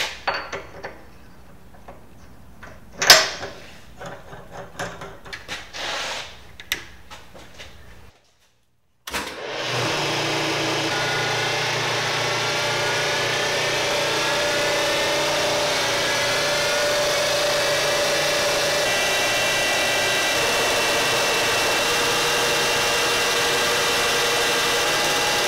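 Metal clinks and knocks from tooling being fitted at a Bridgeport milling machine's spindle, with one loud clank about 3 seconds in. After a short break, the mill runs steadily as a face mill cuts across a metal block. Its whine rises slightly in pitch over a few seconds as the spindle comes up to speed.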